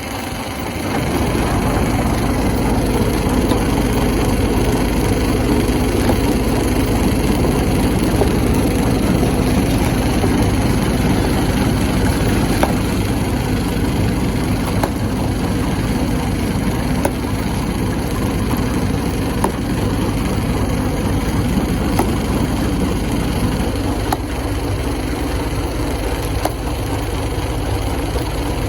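Rock crusher running under load with a steady heavy drone, stone cracking and grinding as it is crushed, with sharp knocks now and then. The noise swells about a second in.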